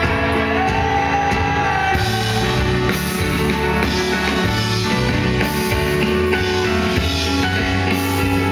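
Live indie rock band playing: electric guitars and drum kit, with a sung vocal line in the first couple of seconds and cymbal crashes every few seconds.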